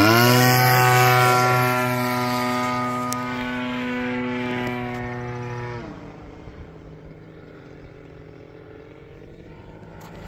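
Radio-controlled Factor 3D aerobatic model airplane passing close at high power, a loud, steady buzzing note from its engine and propeller. About six seconds in the throttle is cut and the note drops away, going on faintly as the plane flies farther off.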